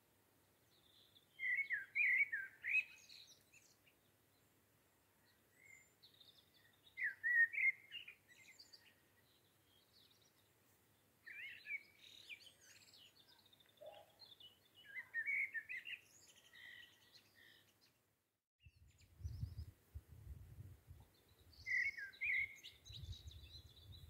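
Nightingale singing: short phrases of quick whistles and trills, separated by pauses of a few seconds. After a brief dropout about three-quarters of the way through, a low rumble joins the song.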